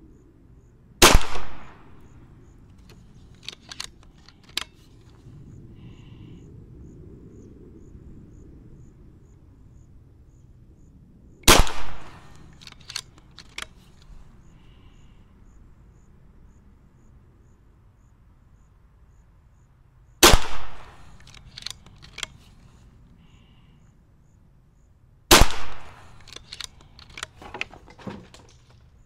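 Niksan Tacto-S .22-calibre unregulated PCP air rifle firing four shots several seconds apart, each a sudden sharp report followed by a few lighter clicks.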